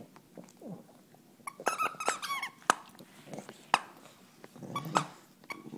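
Rubber squeaky dog toy squeaked several times in quick succession, about one and a half seconds in, followed by a few sharp clicks and a short scuffle near the end.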